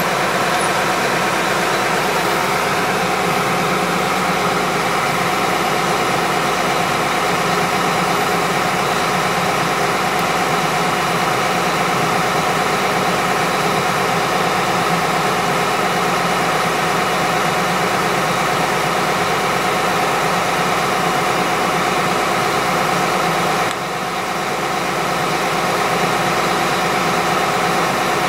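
Drilling rig's engine running steadily, with a brief dip in level about three-quarters of the way through before it picks back up.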